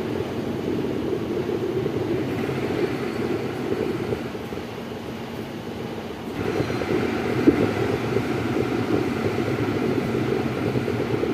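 Amada Vipros 358 King turret punch press running through a sheet-metal job, a dense, steady mechanical clatter. About six seconds in it gets louder and brighter, with a single sharp knock a second later.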